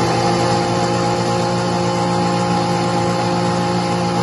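KitchenAid countertop blender motor running steadily at an even pitch, blending a jar of liquid crepe batter.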